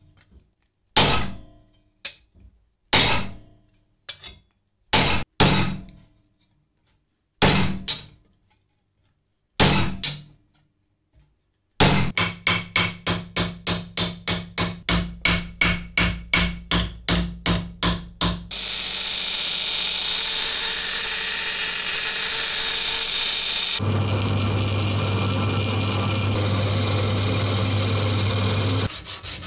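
Hammer blows on a metal fender strip, first single ringing knocks about a second apart, then from about twelve seconds in a fast even run of about four blows a second as the strip is shaped over a round steel stake in a vise. Later comes a steady machine noise, and near the end a motor with a low hum runs as a drill bit cuts a hole in the fender.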